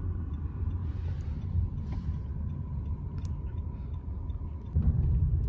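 Car road noise from inside the cabin: a steady low rumble that gets louder a little before the end.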